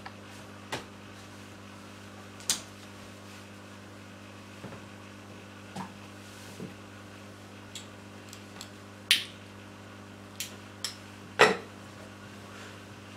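Scattered small knocks and clicks of objects handled on a tabletop, about ten in all, the loudest near the end, over a steady low hum.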